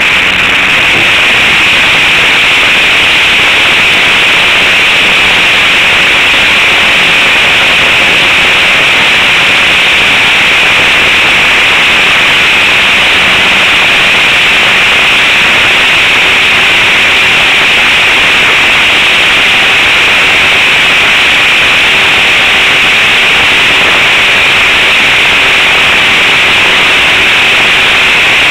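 Radio-controlled trainer model plane's engine and propeller heard from a camera mounted on the plane, a loud, steady, hissing drone with rushing air.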